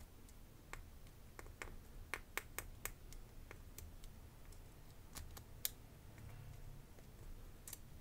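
Faint, irregular clicks from the number wheels of a small four-wheel combination lock being turned by finger while the lock is pulled under tension, feeling for the wheel to drop into a true or false gate as the combination is decoded.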